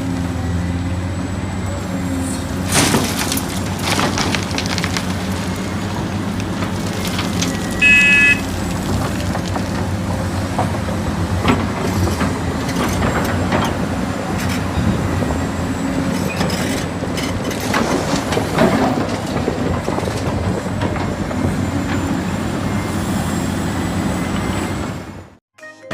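Hydraulic excavator digging: its diesel engine drones steadily under scattered knocks and scrapes from the bucket working. A brief high beep sounds about eight seconds in.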